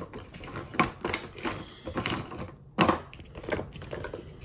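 Makeup products being rummaged through on a table: an irregular string of clicks and clatters as small items are picked up and set down.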